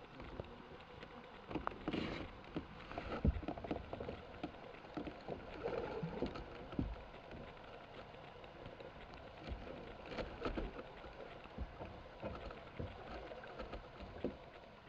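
Muffled sound picked up by a camera held under water: a steady water hiss with irregular knocks and clicks, busiest in the first half.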